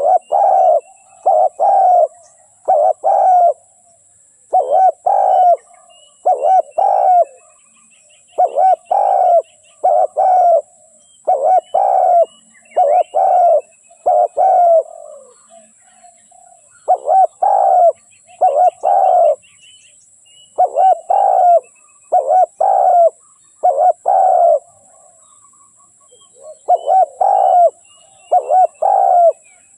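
Spotted dove (tekukur) cooing loudly and repeatedly, in phrases of two to four coos separated by short pauses, as used to lure other doves into calling. Faint chirps of smaller birds and a faint steady high hiss lie underneath.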